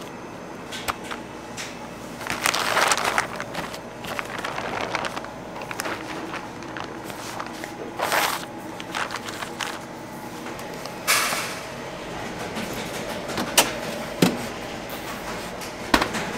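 Bakery work sounds: scattered knocks and clatter with a few short swishing noises over a steady background hum.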